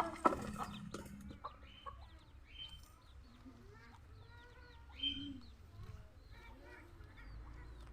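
Chickens clucking and calling, with many short high calls throughout and a louder call about five seconds in.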